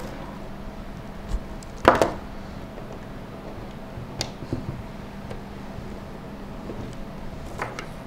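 Modular cables being plugged into the sockets of an EVGA power supply: a few short clicks and knocks of the plastic connectors, the loudest about two seconds in, over a steady hum.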